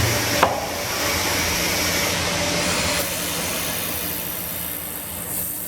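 Automatic ring bending and laser welding machine running its automatic cycle: a steady hiss with a low hum, and a sharp click about half a second in.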